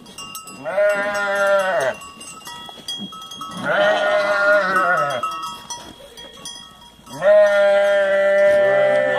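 Goats bleating three times, each call long and drawn out, the third the longest and loudest.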